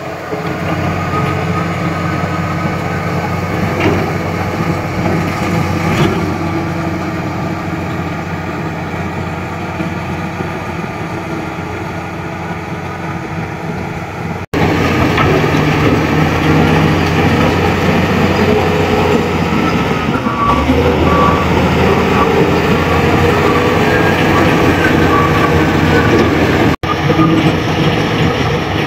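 Komatsu D85E bulldozer's diesel engine running steadily under work, with the sound cutting out abruptly twice and coming back louder after the first cut.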